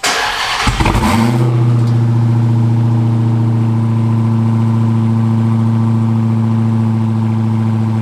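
Cold start of a Dodge Hellcat's supercharged 6.2-litre HEMI V8. The starter cranks for about a second, the engine catches with a quick rev flare, then settles into a steady, even idle.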